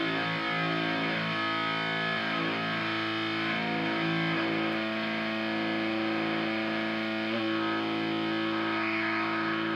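Electric guitar, a Gibson Les Paul, played through a Noise Therapy FX Le Revenant fuzz pedal into a Fender Hot Rod Deluxe IV amp. Distorted chords and notes ring out with long sustain, changing a few times.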